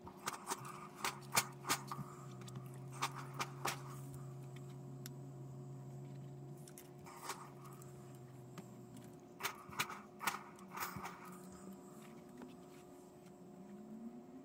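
Light taps and clicks of fabric pieces being handled and set down on a cutting and pressing mat, in two short clusters near the start and again past the middle, with a faint low hum in the first half.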